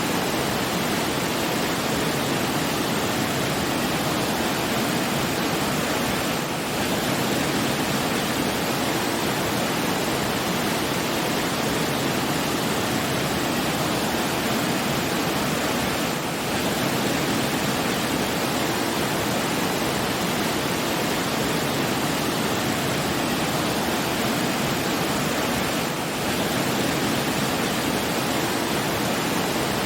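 Steady rushing of water, with slight brief dips in level about every ten seconds.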